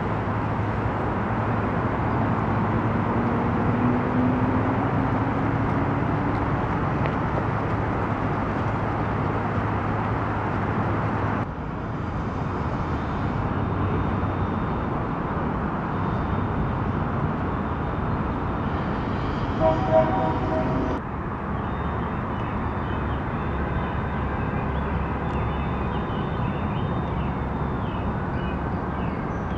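Steady outdoor city noise: a continuous rumble of distant road traffic, changing slightly at two cuts. About two-thirds of the way through, a brief pitched sound stands out.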